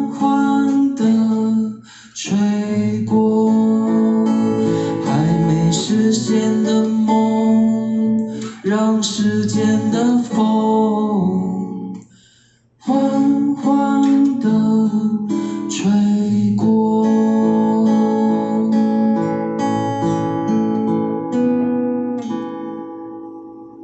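Acoustic guitar strummed and picked through the instrumental ending of a folk song, stopping briefly about halfway, then playing on and fading out near the end.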